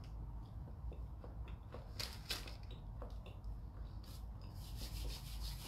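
Chewing a flaky puff-pastry steak bake, with sharp crackles of crisp pastry about two seconds in and a denser run of crackling near the end.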